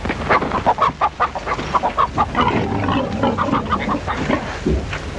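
Chickens and pigs calling: a rapid, unbroken run of short calls, with lower calls mixed in around the middle.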